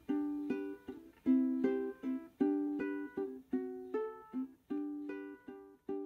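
Background music: strummed ukulele chords, each ringing briefly and fading before the next is struck.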